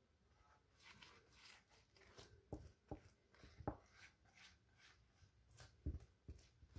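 Faint dabbing and brushing of a silicone pastry brush spreading yogurt sauce over rolled pastry and being dipped in a bowl, with a few soft knocks.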